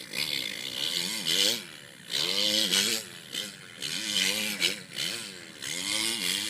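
A man imitating a Honda CRF450 four-stroke dirt bike with his mouth: a raspy, buzzing engine sound revving up and down in pitch in repeated surges, like a supercross bike working through jumps.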